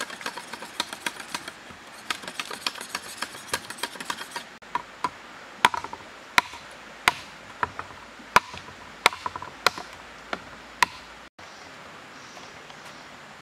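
A large knife chopping into a green bamboo pole. First comes a quick run of light cuts, then about ten sharp chops, roughly one and a half a second, each with a short hollow ring. It goes quieter near the end.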